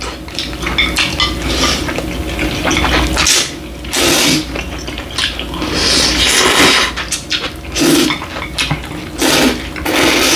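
People slurping bibim ramen noodles and chewing: several loud slurps come at intervals, with light clicks of chopsticks on ceramic plates between them.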